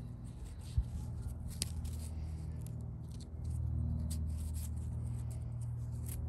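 Loose garden soil crackling and rustling as it is crumbled between the fingers, a string of faint clicks, over a steady low hum that grows louder about halfway through.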